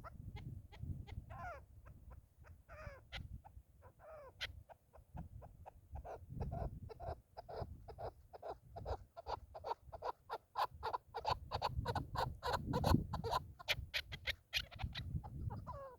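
Chukar partridges calling: a long series of short rapid chuck notes that speeds up and grows louder toward about thirteen seconds in, with a few drawn-out falling calls in the first few seconds, over a low rumble.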